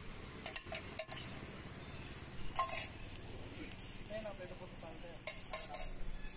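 Beans omelette batter sizzling faintly on a hot flat iron griddle, with a steel spoon clicking and scraping against the griddle a few times.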